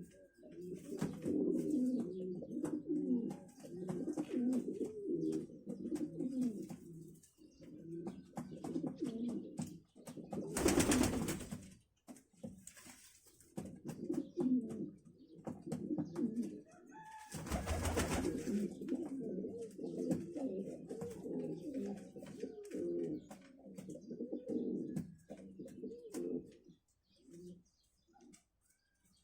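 Pigeons cooing continuously, several low calls overlapping. Two brief rushing noises come about ten and seventeen seconds in, and the cooing thins out near the end.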